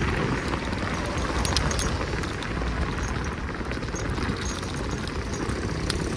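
Rush-hour city street traffic: a steady wash of engine and tyre noise, with a few small sharp clicks.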